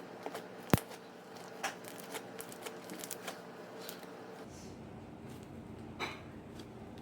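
Homemade slime being squeezed and worked in the hands, making scattered small sticky clicks and crackles, with one sharp click under a second in. A low rumbling noise joins about halfway through.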